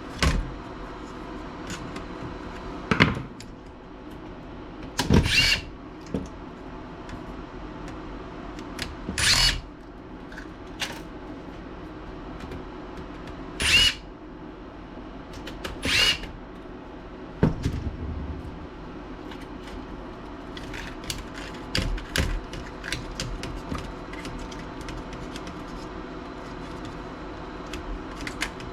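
Five short bursts of a small electric screwdriver spinning screws out of a laptop, each a brief rising whine. Near the end come many small clicks and knocks as the parts are handled.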